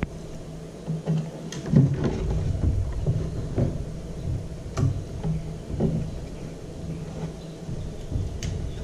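Scattered light clicks and knocks of hands and a small screwdriver working on the plastic housing of a trap's power head, over a steady low hum.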